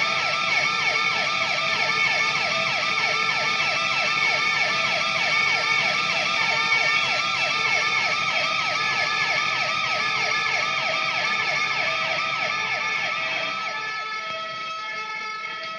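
Emergency vehicle siren yelping in quick repeating sweeps, about three a second, over steady tones, slowly fading away near the end.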